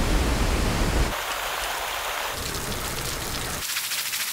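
Rushing water: a waterfall's heavy low rumble and roar for about the first second, then a steady water hiss. Near the end it changes to a higher, hissing lawn-sprinkler spray with a fast flutter.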